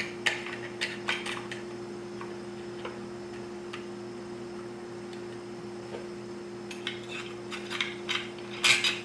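Light clicks and knocks of a muffler being pressed and shifted against an old Craftsman chainsaw's housing while it is tried for fit; the muffler is the wrong one for this saw. A few come near the start and a cluster near the end, the loudest just before it finishes, over a steady low hum.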